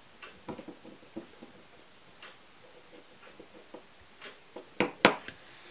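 Small metal clicks and taps as needle-nose pliers work a metal ring into a plastic bottom-bracket bearing shell, with a few sharper clicks near the end.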